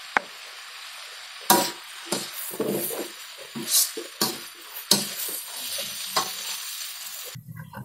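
Long beans and tempe sizzling in a metal wok while a metal spatula stirs them, knocking and scraping against the pan at irregular intervals. The sizzle cuts off suddenly near the end.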